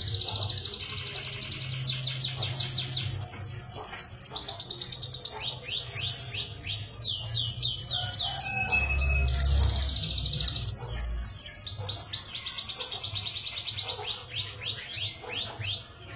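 Domestic canary in full song: long, fast rolls and trills of rapidly repeated high notes, some runs made of quick descending sweeps, switching to a new phrase every second or two.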